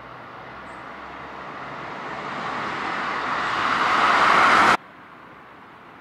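A road vehicle approaching, its tyre and engine noise growing steadily louder, then cut off abruptly just under five seconds in.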